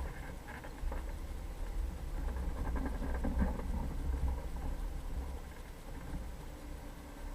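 Jeep Cherokee driving over rough ground: a steady low rumble with irregular rattling and clatter, busiest around the middle.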